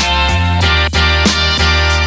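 Background music with a steady beat and guitar-like notes.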